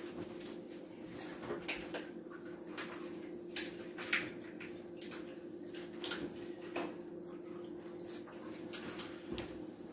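Ham juice draining from a slit in its plastic wrapping into a kitchen sink: scattered faint ticks and drips over a steady low hum.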